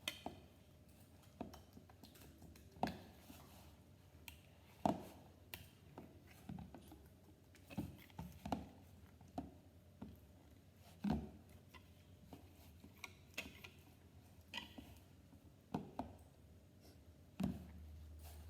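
A whisk stirring pancake batter in a jug, knocking against its sides in irregular faint taps roughly every second or two.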